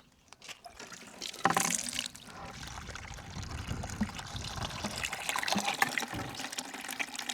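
Water running and splashing, with a louder gush about a second and a half in.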